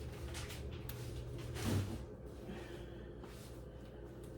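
A short, breathy sniff or gasp of breath about a second and a half in, over a steady low hum.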